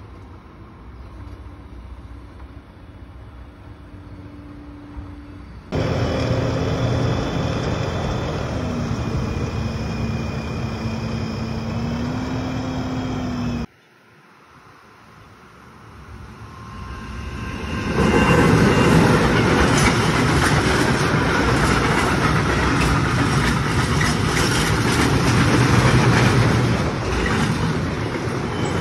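Freight train running past with a steady loud rumble and clatter of steel wheels on rail. After a sudden break about halfway through, the noise swells over a few seconds as the train approaches and then holds loud. The first half is train noise too, with a steady low hum, jumping suddenly from quieter to loud.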